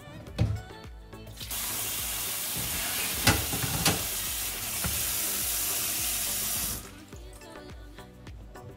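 Kitchen tap running water into a glass bowl of apples in a stainless-steel sink, turned on about a second and a half in and shut off abruptly near the end. A knock comes near the start, and a couple of sharp knocks come while the water runs.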